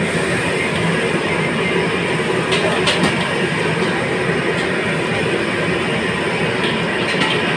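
Steady roar of a commercial wok burner and kitchen exhaust hood, with beaten egg sizzling in the hot wok as a metal ladle stirs it, clinking against the wok a couple of times about two and a half to three seconds in.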